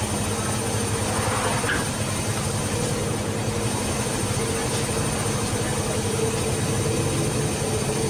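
Electrolux EWF85761 front-loading washing machine running, its drum turning with water and wet laundry inside, with a steady motor hum over the churning.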